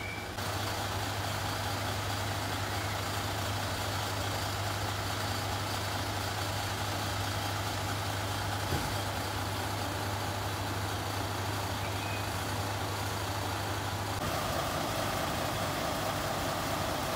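Mercedes-Benz Actros fire engine's diesel engine idling with a steady low hum, with one brief knock partway through. The engine note changes about fourteen seconds in.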